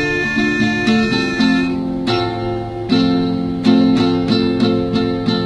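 Acoustic guitar played solo without singing, chords picked in a steady rhythm with the chord changing every second or so, in the song's closing instrumental bars.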